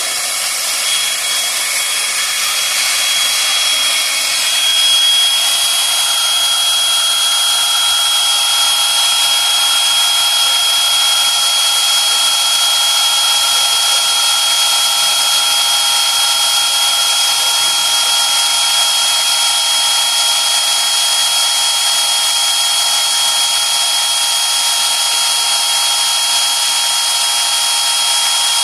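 Trident magnetic drilling machine running with a broach cutter: a steady high motor whine that builds over the first few seconds, then holds level.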